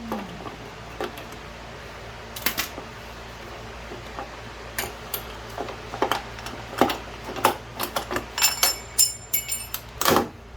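A power tool spins down at the start, followed by scattered clicks, taps and clinks of hand tools and loose metal parts. A few brighter metallic rings come near the end.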